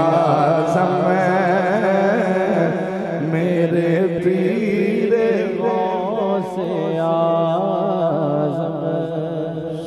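A man's voice chanting a devotional refrain through a microphone and loudspeakers, drawn out in long wavering melismatic notes. It eases off a little near the end.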